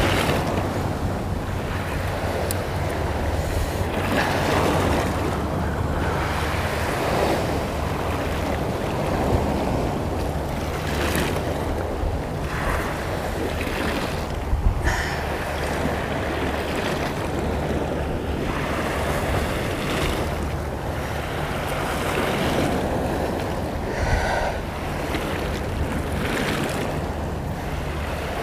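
Sea waves washing and splashing against shore rocks in repeated swells, with wind rumbling on the microphone. There is a short sharp knock about halfway through.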